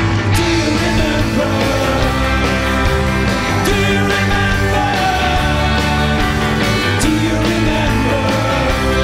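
A live rock band playing loudly, with electric guitars over a drum beat.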